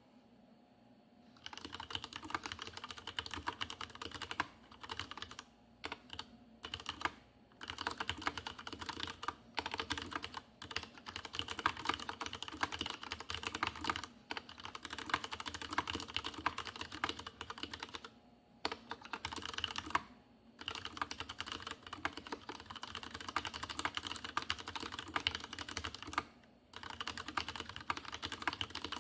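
Fast, continuous typing on a Leopold FC750R PS tenkeyless mechanical keyboard with unlubricated Cherry MX Red switches: a dense stream of key clacks with a hollow case ring, starting about a second and a half in and broken by a few brief pauses.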